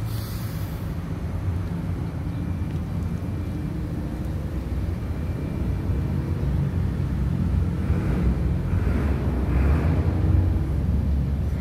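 Isuzu Forward dump truck's diesel engine idling steadily, an even low hum. A few faint short hisses come in about eight to ten seconds in.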